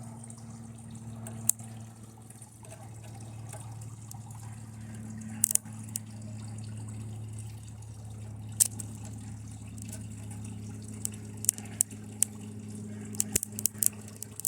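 TV circuit board burning and arcing under high current from a lead-acid battery, giving scattered sharp pops and crackles that come thicker near the end, over a steady low hum.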